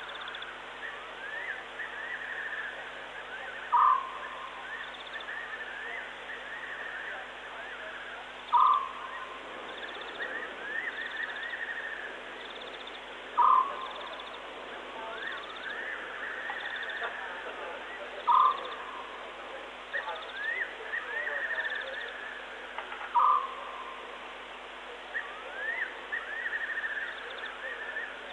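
Night-time wild animal calls: a loud short call repeating about every five seconds, six times, over a steady chorus of chirps and rising trills.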